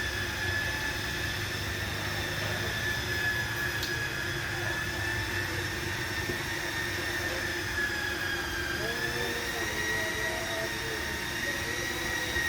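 A steady, high-pitched machine whine that wanders slightly in pitch, with a lower hum under it.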